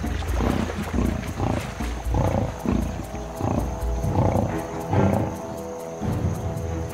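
Lionesses growling in a string of short low rumbles as they bite into a buffalo. Background music with sustained notes plays underneath.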